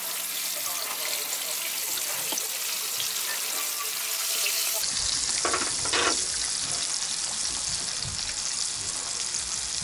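Pieces of fish frying in oil in a pan, a steady sizzling hiss.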